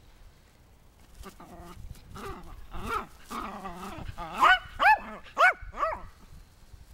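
Yorkshire terrier growling and grumbling, then giving four sharp, high-pitched yips in quick succession near the end.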